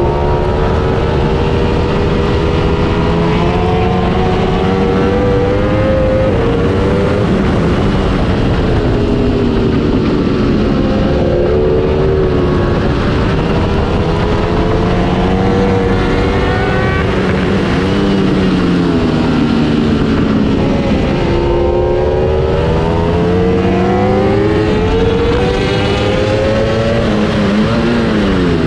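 Ducati Panigale V4 S's 1,103 cc V4 engine at racing speed, heard onboard: the pitch climbs as it accelerates and drops sharply at each gear change, several times over, under a steady rush of wind and road noise.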